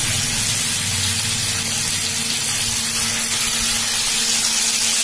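Marinated fish shallow-frying in hot oil on a dosa tawa: a steady sizzle.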